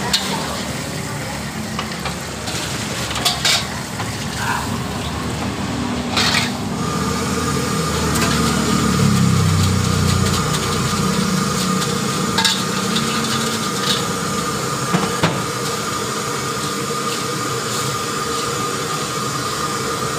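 Metal spatula scraping and clinking around a steel wok over a gas burner, with liquid sizzling in the hot pan. A steady high hum joins about seven seconds in.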